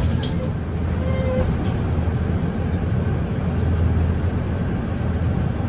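Mercedes-Benz Citaro city bus running, a steady low rumble, with a short high tone sounding briefly about a second in.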